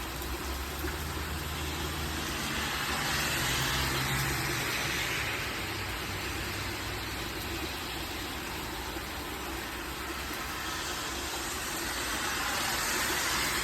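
Heavy downpour of rain: a steady rushing hiss that swells a little twice. A low steady hum runs underneath for the first few seconds, then fades.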